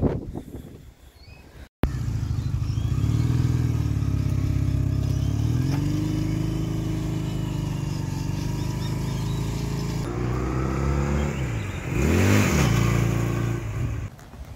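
A 2004 Honda CB250 Nighthawk's air-cooled parallel-twin engine running as the motorcycle is ridden around, its pitch rising and falling with the throttle. Near the end there is a quick drop and rise in revs.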